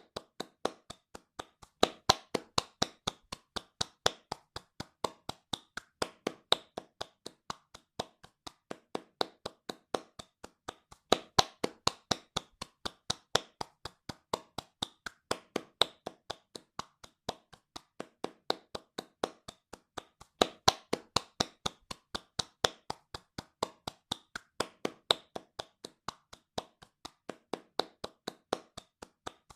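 Hands clapping fast and steadily, about four claps a second, some claps sharper and louder than others.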